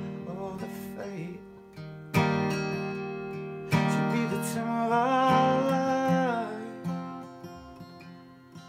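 Steel-string acoustic guitar strummed, two hard chord strums ringing out, with a man's voice singing one long, wavering held note in the middle.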